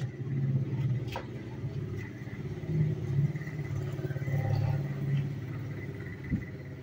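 Light propeller plane flying low overhead, its engine droning with a fast throbbing pulse, louder through the middle and fading near the end.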